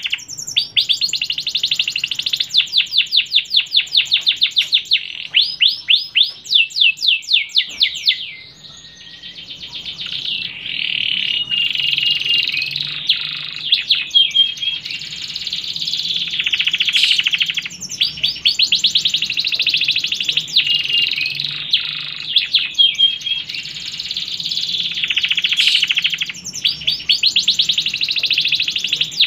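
Domestic canary singing a long, continuous song of fast rattling trills and rolled phrases, each run of rapid repeated notes giving way to the next, with a short break about eight seconds in.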